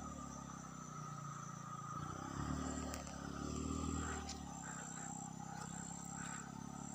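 A motor vehicle's engine running, its level swelling and easing several times, with a few light clicks.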